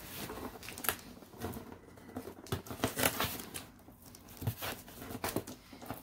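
A cardboard box being handled and turned over, with fingers scratching and picking at the tape on its top flap: irregular scrapes, taps and crinkles.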